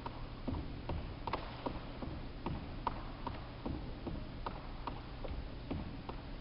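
Sneakers landing on a wooden court floor in quick one-legged hops, about two to three landings a second, over a steady low hum.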